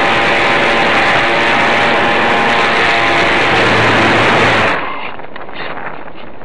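Electric model plane's motor and propeller running in flight, heard from an onboard camera, with air rushing over the microphone. About three-quarters of the way in the sound drops suddenly to a quieter, fluttering wind rush.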